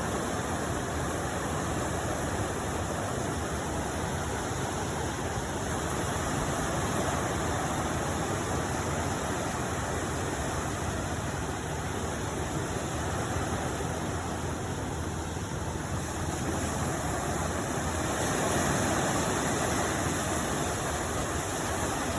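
Steady rushing noise of sea surf at the shore, swelling a little a couple of times.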